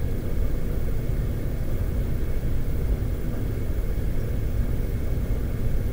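Steady low rumble of room background noise, with no speech.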